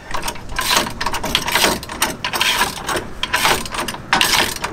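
Socket ratchet wrench clicking in quick runs of strokes with short pauses between, as nuts are tightened onto the mounting bolts.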